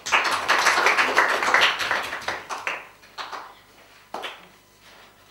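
Applause from a small group of people, dense for about three seconds and then dying away, followed by two single sharp taps.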